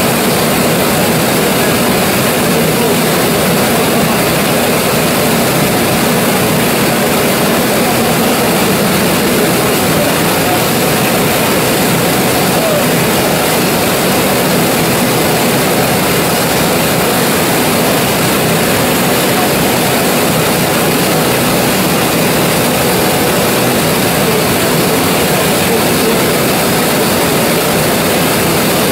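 1925 Gardner 4T5 four-cylinder oil engine running steadily at an even speed.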